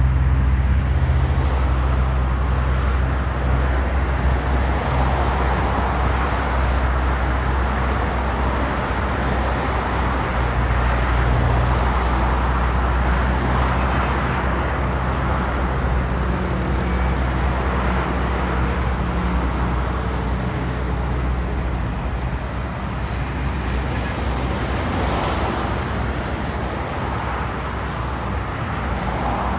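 Road traffic on a busy avenue: cars and other vehicles passing one after another, their tyre noise swelling and fading every few seconds over a steady low engine rumble.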